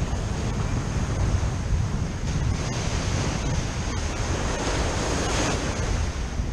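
Ocean surf washing steadily, with wind buffeting the microphone as a heavy low rumble; one wash swells up about five seconds in.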